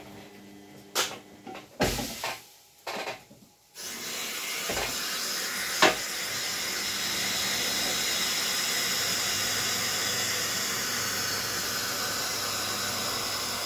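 A few knocks and clatters, then about four seconds in a kitchen tap starts running steadily into the sink, filling a non-stick frying pan to soak off stuck-on food, with a single sharp click partway through.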